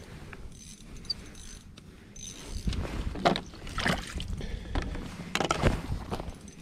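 Spinning reel cranked by hand, with several short, louder scrapes from about two and a half seconds in.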